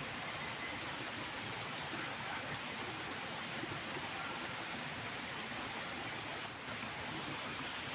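Steady, even rushing hiss with no distinct events, dipping briefly about six and a half seconds in.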